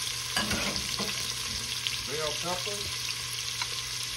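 Diced onions frying in hot oil and rendered chicken fat in a stainless steel stockpot: a steady sizzling hiss with scattered small crackles.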